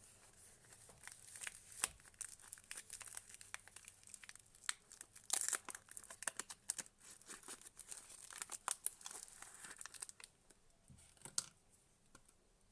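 Wrapping on a bar of soap being crinkled and torn open by hand: dense crackling and rustling that thins out about ten seconds in, with a couple of last clicks.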